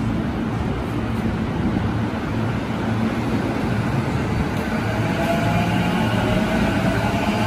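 JR E233-series electric train running along the platform track, a steady rumble of wheels on rail. From about five seconds in, a faint rising whine from the traction motors joins it.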